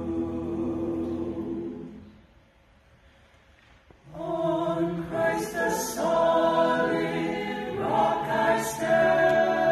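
Mixed a cappella choir singing a held chord that dies away about two seconds in. After a short silence the voices come back in, louder, about four seconds in, with sharp 's' consonants sounding together twice.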